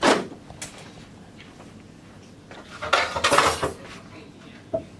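Kitchenware being set back in place on a counter: a knock at the start, a busy run of clinks and knocks about three seconds in, and a single click near the end.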